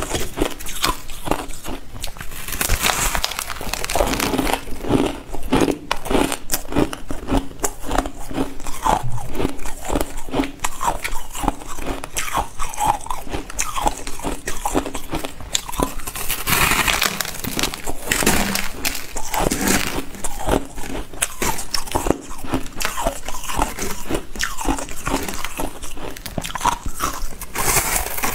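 Ice being bitten and chewed: close, continuous crunching and cracking of ice between the teeth, with many sharp crunches in quick succession throughout.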